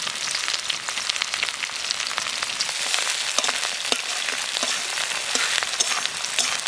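Sliced onions sizzling and crackling in hot oil in an aluminium kadai, with a metal spatula scraping the pan as they are stirred.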